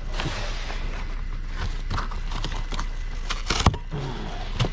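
Clatter and knocks of junk being handled, with one sharper knock about three and a half seconds in, over a steady low hum.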